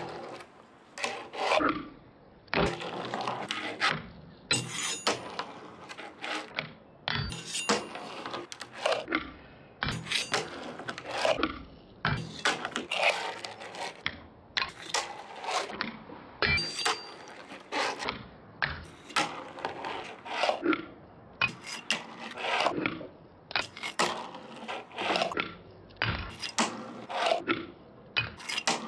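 Fingerboard tricks on a wooden table: the small board's wheels rolling and scraping along the wood and a painted ledge, with sharp clacks from pops and landings, in clusters every second or two.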